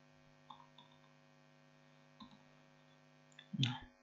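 Steady low electrical hum with a few faint computer keyboard clicks, and a short louder noise near the end.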